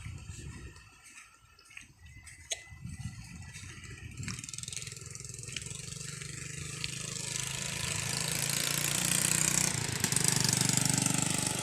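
An engine running, growing steadily louder from about four seconds in and loudest near the end, as if a motor vehicle is approaching.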